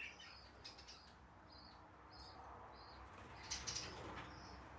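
Budgerigars chirping faintly: a string of short, high chirps, with a louder burst of chatter about three and a half seconds in.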